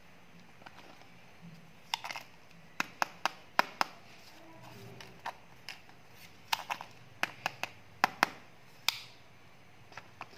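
Hard plastic candy eggs and candy containers clicking and tapping against each other as they are picked up and handled, in an irregular run of sharp clicks with short pauses.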